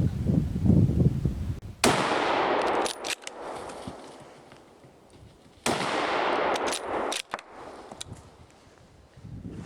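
Two rifle shots about four seconds apart, each a sudden loud report with about a second of rolling echo, followed by a few sharp clicks.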